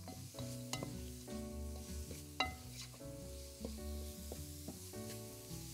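Chopped onion frying in corn oil and spices in a pot, sizzling steadily as it is stirred with a wooden spatula, with two sharper knocks of the spatula against the pot. Soft background music plays underneath.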